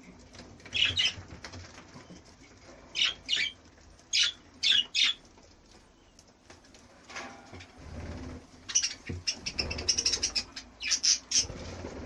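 Budgerigars chirping and fluttering: a few short sharp calls spaced a second or two apart, then a quick run of chirps over the last few seconds.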